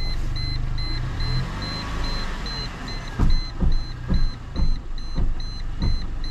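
Mercedes-Benz A-Class (W169) front wheel knocking in a rhythm of about two knocks a second, starting about three seconds in, over the running engine and a car warning chime that beeps about twice a second throughout. The knocking comes at full left steering lock, where the pothole-bent alloy rim rubs against the steering tie-rod end.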